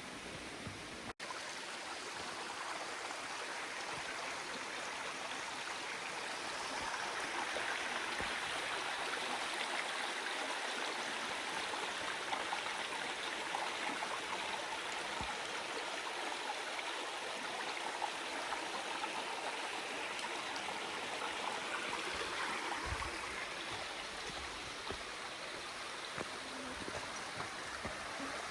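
Stream water flowing steadily, a little fuller through the middle, with a split-second break about a second in.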